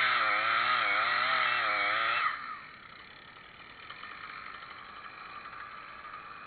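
Two-stroke chainsaw running at high revs with a wavering pitch, then the throttle released a little over two seconds in. The pitch drops and it falls to a much quieter, steady engine sound like an idle.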